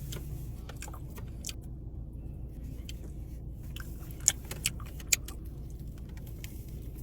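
Eating seafood by hand: scattered small wet clicks and smacks, with three sharper ones close together about four to five seconds in, over a steady low hum.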